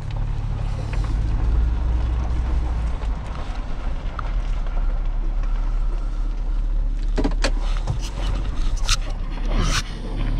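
Hummer SUV driving slowly, heard from inside the cabin: a steady low engine and road hum, with a few sharp knocks or bumps in the last few seconds.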